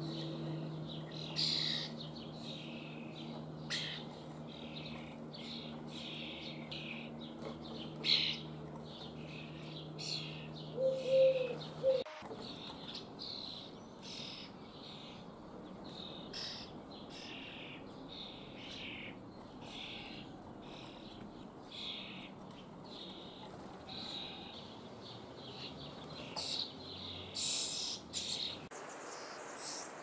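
Young common starlings begging at a nest box: a long run of short, high calls repeated over and over, loudest about 8 and 11 seconds in. A steady low hum runs underneath and stops abruptly about twelve seconds in.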